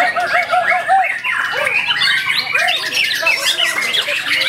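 White-rumped shama singing: a quick run of repeated short notes in the first second, then a dense, varied jumble of rapid notes.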